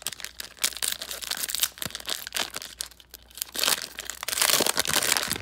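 Cellophane wrapper of a trading-card cello pack being crinkled and torn open by hand, a dense crackling that gets louder in the last couple of seconds.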